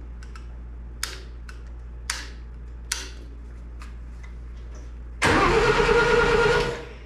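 Starter motor cranking the Satoh S-550G tractor's four-cylinder gas engine for about a second and a half without it firing, turned over to check for spark at the points, which shows none. Before it, a few light taps and scrapes of tools.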